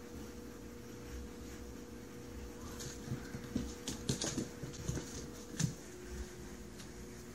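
A cat chasing a small plastic ring toy across a hardwood floor: a run of light clicks and taps for a few seconds, starting about three seconds in, with one louder tap near the end.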